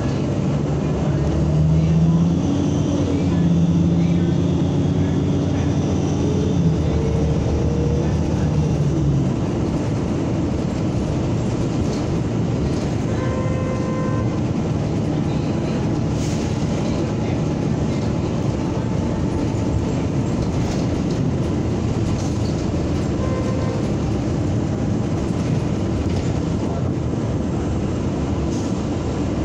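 NABI 45C-LFW city bus under way, heard from inside the cabin: the engine and drivetrain whine climbs in pitch for the first several seconds as the bus accelerates, then settles into a steady drone of engine and road noise.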